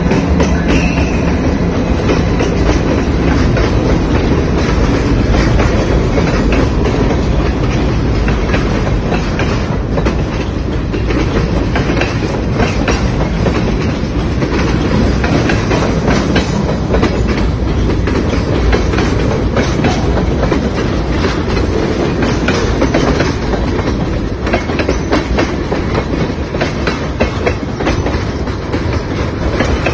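Freight train passing close by. The low drone of a diesel locomotive fades in the first few seconds, then the cars roll past with a steady heavy rumble and wheels clacking over the rail joints.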